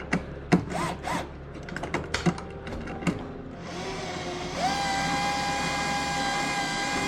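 Scattered clicks and knocks of hardware and tools being handled. About four and a half seconds in, a power drill starts running at a steady pitch.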